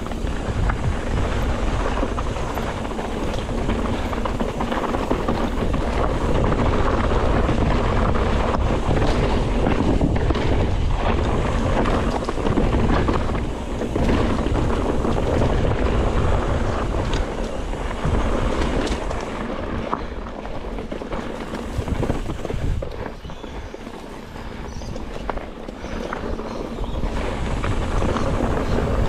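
Wind buffeting the microphone in a steady, heavy rush with a deep rumble, easing off a little for a few seconds before the end, with the rush of water going past a moving sailing boat mixed in.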